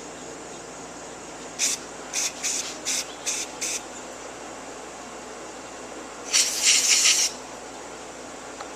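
Aerosol can of carburetor cleaner spraying into a carburetor: six short hissing bursts, then one longer, louder burst about six seconds in.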